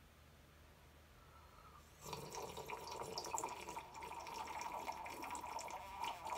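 Someone slurping warm tea from a glass mug: one long, wet slurp starting about two seconds in.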